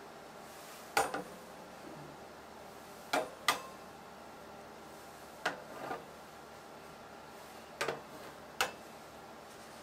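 Short, sharp clicks and taps of kitchen utensils and dishes being handled, about nine in all and often in quick pairs, every couple of seconds over faint room tone.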